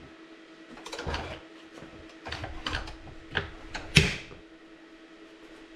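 Knocks and metal clatter of an electric bike being lifted and set onto a stand, several separate clunks with the loudest about four seconds in, over a faint steady hum.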